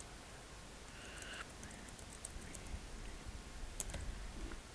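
Soft, scattered small clicks and light taps close to the microphone, with a brief faint whisper about a second in and a duller knock near four seconds.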